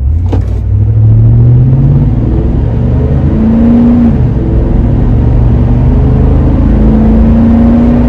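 Cabin noise inside a 2020 Toyota Sequoia TRD Pro under way: a steady low rumble from its 5.7-litre V8 and the road that comes up suddenly at the start, with engine tones that rise and fall as it pulls. The new Corsa cat-back exhaust is hardly heard through the cabin soundproofing.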